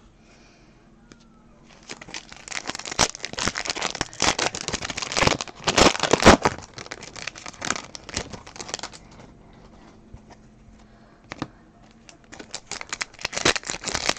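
Foil trading-card pack wrappers being torn open and crinkled by hand, in two spells: from about two seconds in to about nine, and again near the end.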